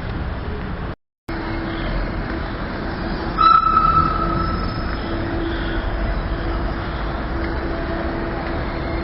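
Matterhorn Gotthard Bahn narrow-gauge train running with a steady rumble and hum, and a short, high wheel squeal about three and a half seconds in. The sound cuts out briefly about a second in.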